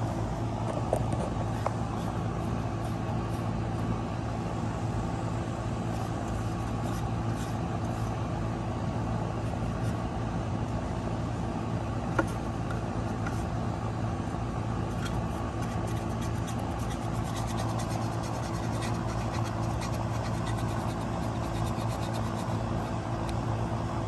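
A steady low machine hum at an even level, with one short click about twelve seconds in.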